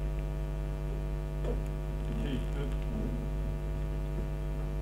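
Steady electrical mains hum with a buzzing stack of even overtones.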